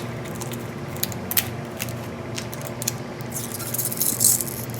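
Small clicks and taps from handling a boxed lip pencil and its packaging, with a denser crinkly rustle of the packaging about three and a half seconds in, over a steady low hum.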